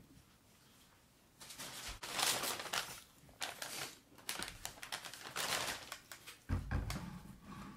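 Paper fast-food bags rustling and crinkling in irregular bursts, with a low thump about six and a half seconds in.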